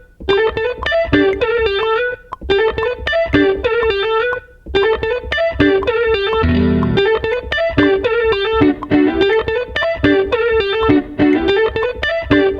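Instrumental beat with a fast, repeating plucked-string melody. It cuts out briefly near the start, about two seconds in and about four and a half seconds in, and a short low swell comes in about six and a half seconds in.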